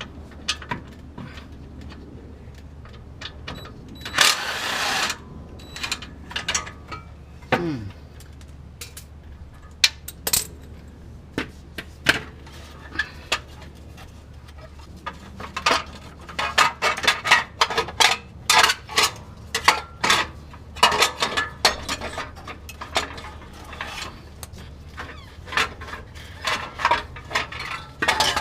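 Hand tools working on metal under a car: a ratchet wrench clicking and sockets, bolts and wrench clinking as the exhaust heat shield and catalytic converter bolts are undone. The clicks come scattered at first and then in dense runs through the second half, with a short hiss about four seconds in.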